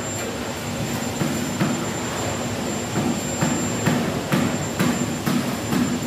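Building-site work noise: a machine running with a stuttering low hum and a thin steady high whine, and from about halfway through, short knocks or scrapes about twice a second.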